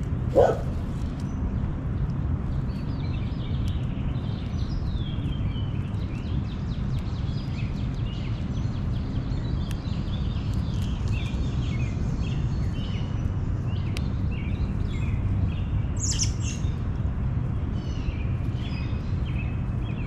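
Small birds chirping on and off over a steady low rumble, with one loud short call sliding down in pitch about half a second in and a brief high shrill note near the end.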